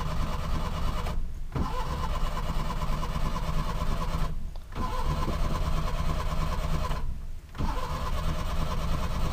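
Maruti car's petrol engine being cranked by the starter motor with the choke pulled, in about four goes separated by short breaks about one, four and a half and seven seconds in: repeated attempts to start an engine that will not start normally.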